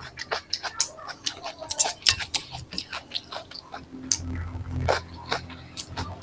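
Close-miked eating sounds: chewing and crunching as a run of sharp, irregular clicks. A low steady hum joins about four seconds in.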